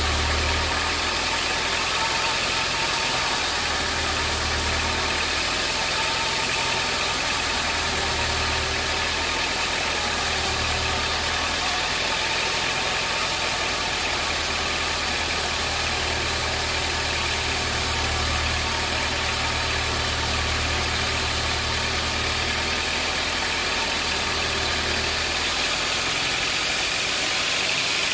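Sawmill machinery running steadily, with a constant wide hiss and a low engine-like hum that swells and fades every few seconds.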